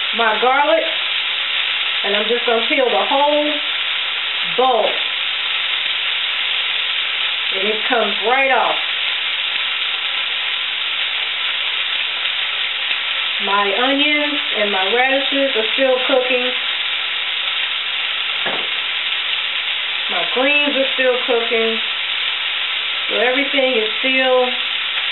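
Onions sizzling steadily as they fry in a cast-iron skillet, with a woman's voice coming in briefly over it several times.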